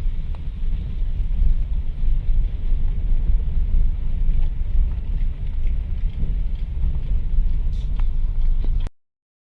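Facelifted Skoda Octavia A7 driving, a steady low road rumble with a few faint light clicks over it: the small crackle of a front-suspension knock, a thin metal-on-metal rattle on small uneven surfaces. The sound cuts off abruptly near the end.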